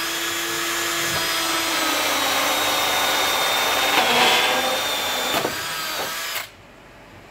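Cordless drill boring a 2-inch hole in PVC pipe with a Greenlee ultra cutter hole cutter. The motor whines steadily, its pitch sagging a little under the load of the cut. It gets loudest about four seconds in and stops abruptly at about six and a half seconds.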